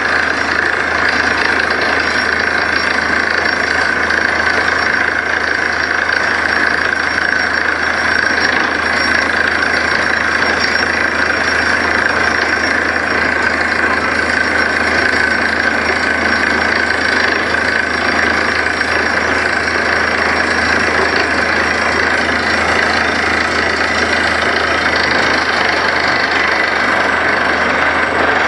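Truck-mounted borewell drilling rig running steadily as it drills, a loud unchanging machine noise from its engine and the compressed air blowing dust out of the borehole.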